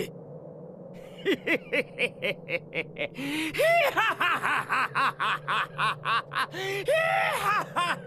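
A male anime character laughing in a long string of short, rapid bursts, about four a second, starting about a second in.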